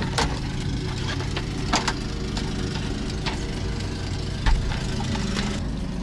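An engine idling with a steady low hum, with a few light plastic clicks and knocks as a dashboard trim panel is handled and lifted away.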